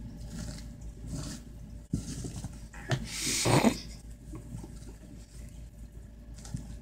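A kitten scampering and playing: a couple of soft knocks, then a brief scuffling rustle about three and a half seconds in.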